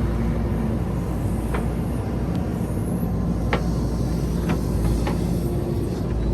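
JCB 3DX backhoe loader's diesel engine running steadily with a deep rumble, with a few sharp clicks or knocks through the middle.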